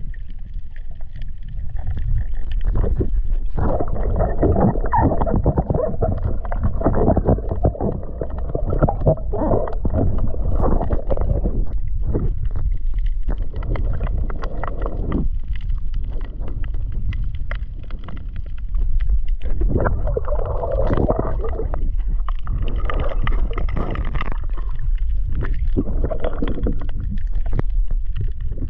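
Muffled underwater noise picked up by a submerged camera: a steady low rumble with gurgling, rushing water that swells in louder stretches and eases off again.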